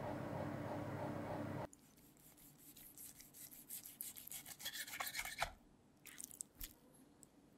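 A steady hum and hiss from the oven with the steak inside, cutting off after about a second and a half. Then a chef's knife saws through the crisp seared crust of a bone-in steak on a wooden cutting board, a quick run of crackly rasping strokes ending in a louder one. A few soft crackles follow as the slices are pulled apart.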